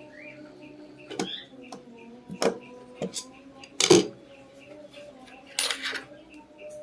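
Sharp metallic clinks and taps of small tools and parts being handled on a sewing machine's rotary hook assembly, the loudest about four seconds in, over a faint steady hum.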